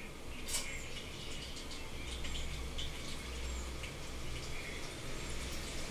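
Whole tempering spices (bagara) frying in hot oil in a kadai: a steady hiss with scattered faint crackles.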